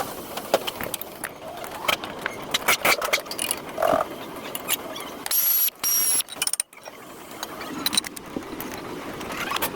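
Metal tools clicking and clanking on brake parts in a series of sharp knocks, with a brief steady high whine about five seconds in.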